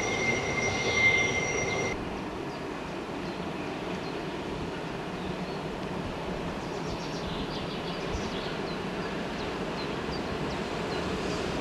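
A high steady squeal from a passenger train crossing a curved viaduct, cut off about two seconds in. Then an electric freight train approaching around a curve: an even, distant rumble of wheels on rail that grows slightly louder near the end.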